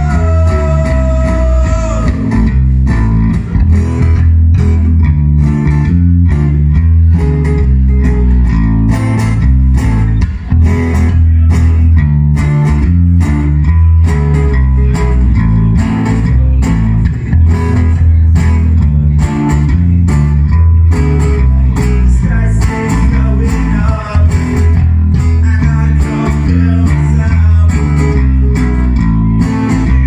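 Live rock band playing an almost-acoustic song: a steady bass guitar line under strummed acoustic and electric guitars, with a sung vocal line on top.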